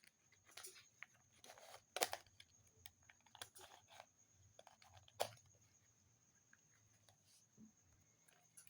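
Faint, scattered plastic clicks and scraping as the back cover of a smartphone is pried off, with sharper snaps about two and five seconds in.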